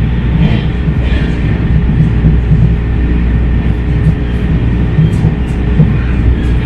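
MARTA rapid-transit rail car running at speed, heard from inside the car: a steady low rumble of motors and wheels on the rails.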